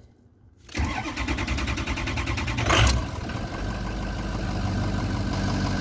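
Ford 6.0 L Power Stroke V8 diesel being cranked by the starter for about two seconds. It catches with a loud surge and settles into a steady idle: the crank-no-start cured.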